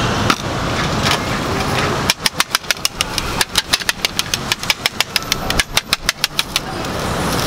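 Knife chopping through watermelon onto a cutting board: a rapid, even run of sharp knocks, about five or six a second, starting about two seconds in and stopping near the end, over steady street traffic noise.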